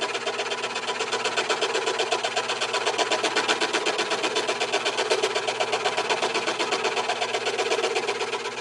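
WEN benchtop scroll saw running at low speed, its reciprocating blade cutting half-inch-thick red oak in a rapid, even rhythm of strokes until it stops at the very end.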